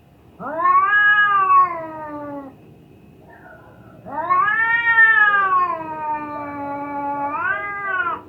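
A cat in heat yowling: two long calls, the first about two seconds, the second about four seconds, each rising then slowly falling in pitch, the second with a brief upturn just before it stops.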